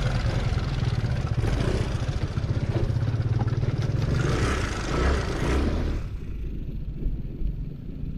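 Aprilia SR 150 scooter's single-cylinder four-stroke engine running at low speed on a rough dirt track. About six seconds in, the sound drops quieter and loses most of its hiss.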